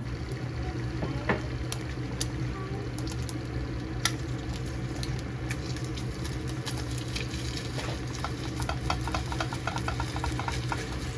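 Egg frying in a pan, sizzling, while a spatula stirs and scrapes against the pan in many short clicks and taps, busier in the second half, over a steady low hum.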